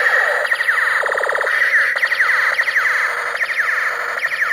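Battery-powered Captain America toy pistol with a light-up spinning propeller, playing its electronic sound effect. A steady alarm-like tone runs under repeated falling laser-style zaps, with a quick pulsing stutter about a second in.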